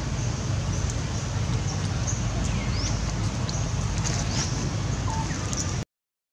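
A few short bird chirps, sharp pitch glides, over a steady low outdoor rumble; the sound cuts out abruptly near the end.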